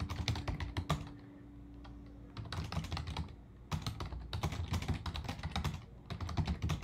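Fast typing on a computer keyboard: a quick run of key clicks, a pause of about a second and a half, then more bursts of typing.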